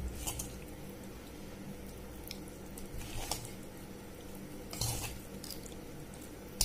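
Hand mixing spice paste into raw rohu fish pieces on a steel plate: faint wet squishing with a few scattered clicks and taps of fish and fingers against the metal, over a low steady hum.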